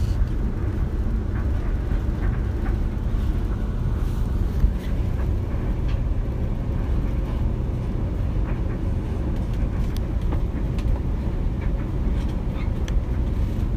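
Steady low rumbling noise with a faint hiss over it, cutting off suddenly at the end.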